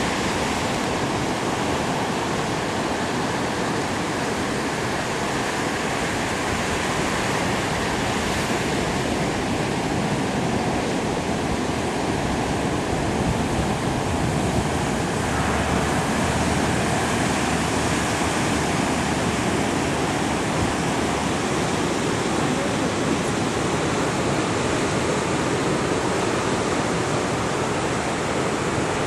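Atlantic surf breaking on a rocky beach: a steady, continuous rush of waves.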